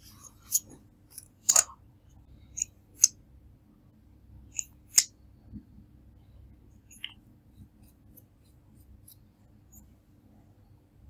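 A series of sharp clicks and snaps, the loudest ones clustered in the first five seconds and a few fainter ones later, over a faint steady hum.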